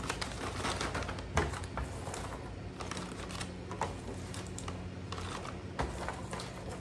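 Dry, light freeze-dried sweet potato pieces clicking and rattling as they are swept together by hand and dropped into a foil Mylar bag, a run of irregular light clicks with one louder knock about a second and a half in.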